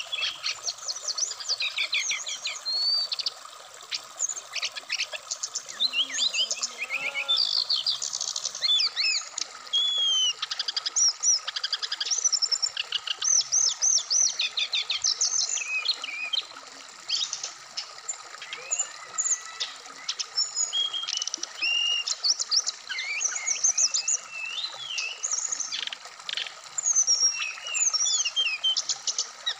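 Brown-chested jungle flycatcher singing continuously, a rapid, varied run of high whistles, chirps and short pitch glides, over the steady rush of a flowing stream.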